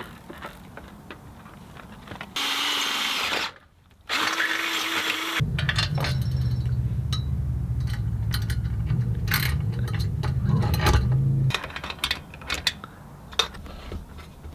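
A power tool runs in two short bursts, then a loud, steady low-pitched machine sound lasts about six seconds. Near the end there are scattered clicks and taps of metal parts being handled.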